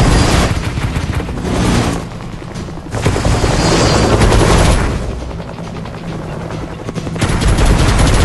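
Helicopter rotor chop, a loud rapid beating that swells and fades in passes. It surges at the start, dips after about two seconds, returns, and surges again near the end, over music.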